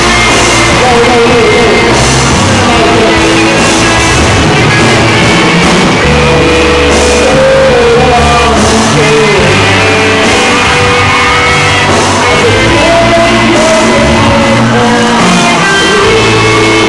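A live rock band playing: electric guitars, bass guitar and a drum kit, with a vocalist singing over them into a microphone. The sound is loud and continuous.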